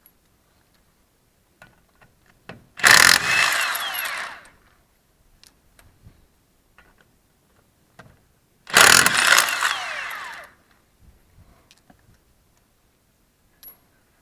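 Power impact wrench running off the wheel's lug nuts in two bursts of about two seconds each, several seconds apart, each fading as the tool winds down. Light clinks of the socket and nuts come between.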